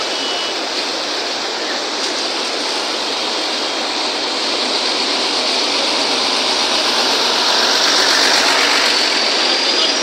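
Steady rushing noise of vehicles driving through muddy floodwater on a road, water churning around tyres along with engine noise. It grows louder as a large container truck passes close by, about eight seconds in.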